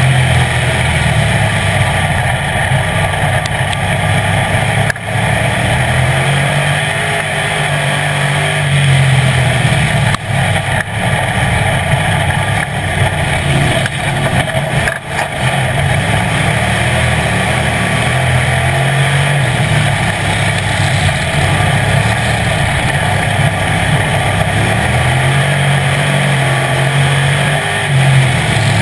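Street stock race car's engine heard from inside the car at racing speed, loud and under heavy throttle. Its note swells and eases in a repeating pattern as the car lifts for the turns and gets back on the gas, with a few brief lifts along the way.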